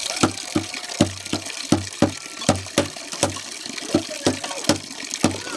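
Water pouring from an outdoor tap into a wok and over steel dishes as they are rinsed. A regular series of dull knocks, about three a second, runs through it.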